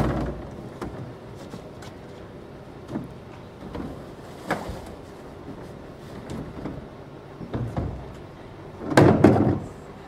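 A small plastic wheelie bin is tipped out into a large waste container: a knock as it hits the container's rim, scattered knocks while the rubbish slides out, and a louder plastic clatter near the end.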